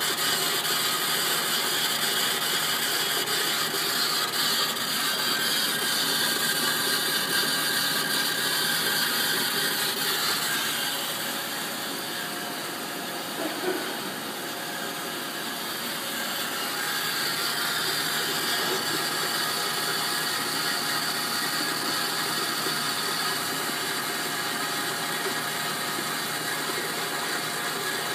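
1997 Sodick AP500 CNC wire EDM machine running: a steady mechanical whir and hum made of several steady tones, dipping a little in the middle with a brief click, then coming back.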